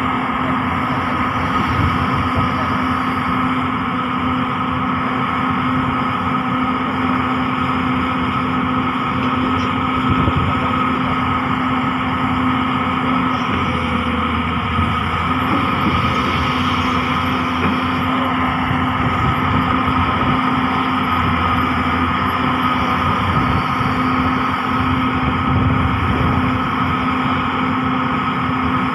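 Large Hyundai hydraulic excavator's diesel engine running steadily, with a constant hum.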